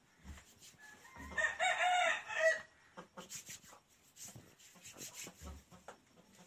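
A rooster crowing once, a call of a little over a second starting about a second in. Light rustling and shuffling clicks follow.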